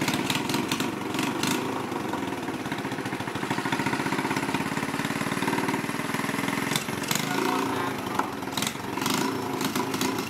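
A Honda Chaly's small single-cylinder motorbike engine running steadily at idle, with a few sharp clicks and knocks about a second in and near the end.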